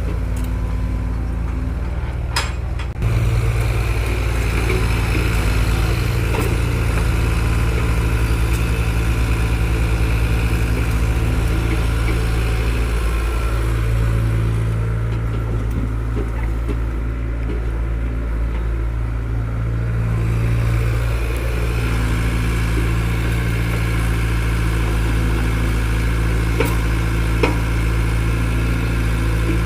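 Diesel engine of a bulldozer or tractor running steadily, stepping up in level about three seconds in.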